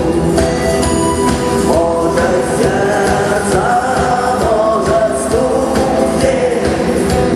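Rock band playing a song with singing over a steady drum beat.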